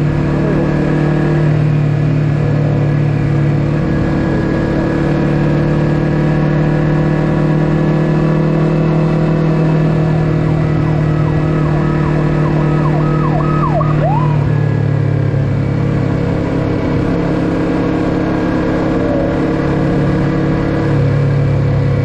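Yamaha YZF-R3's parallel-twin engine running through an Akrapovic full-system exhaust at a steady cruise, its note shifting slightly about two-thirds of the way through. Past the middle, a brief high tone dips in pitch a few times.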